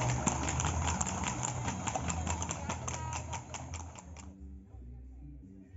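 Outdoor crowd chatter with a quick run of sharp clicks, about five a second. About four seconds in the sound cuts off abruptly, and faint music takes over.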